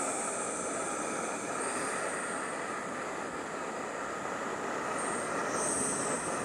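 Small BRS gas canister stove burning on a high flame: a steady, loud rushing hiss of the burner.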